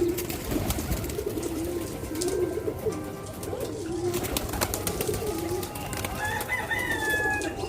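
Domestic pigeons cooing over and over, several coos overlapping, with scattered light clicks and a higher, thinner call near the end.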